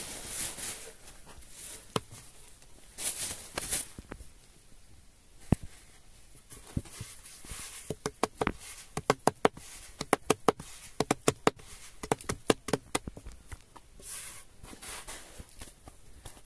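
Hands patting and pressing a ball of bread dough flat on a floured wooden board: a quick run of sharp pats for several seconds in the middle, with soft brushing sounds of hands and flour before and after.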